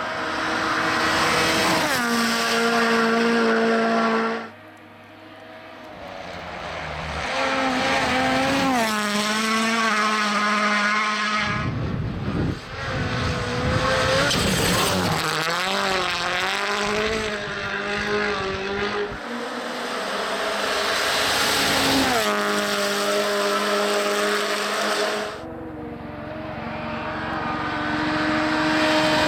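Rally1 cars (Toyota GR Yaris, Hyundai i20 N, Ford Puma) passing at full attack one after another, their turbocharged four-cylinder engines at high revs. The engine note climbs and then steps down at each gear change. The sound breaks off abruptly several times between separate passes.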